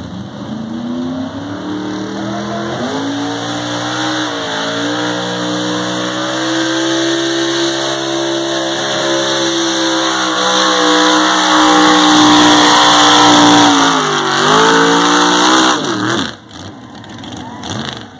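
Big-block Chevy V8 in a lifted pickup at full throttle pulling a weight-transfer sled: the revs climb over the first few seconds, then hold high and steady as it grows louder. The pitch sags briefly once, then the driver lets off about three-quarters through and the engine drops, with one short rev near the end.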